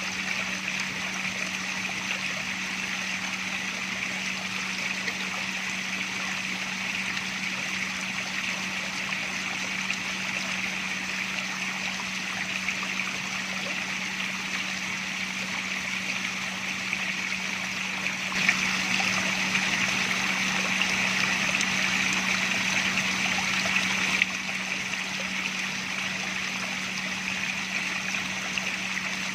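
Water trickling and splashing steadily, with a low steady hum underneath. It turns louder about 18 seconds in and drops back suddenly about 24 seconds in.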